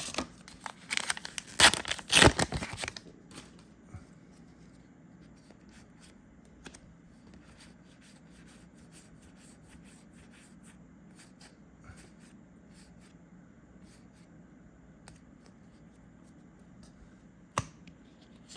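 A trading-card booster pack's wrapper being torn open, a loud ripping and crackling lasting about two seconds starting about a second in. Then faint scattered clicks of cards being handled, with one sharper click near the end.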